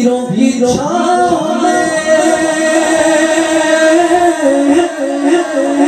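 Man singing a devotional Urdu naat through a microphone, drawing out long held notes with little ornamental turns and no clear words.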